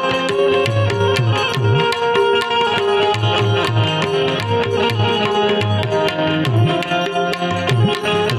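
Instrumental interlude of a Gujarati folk song: tabla keeps a quick steady beat, its bass strokes sliding in pitch, under a sustained melody instrument.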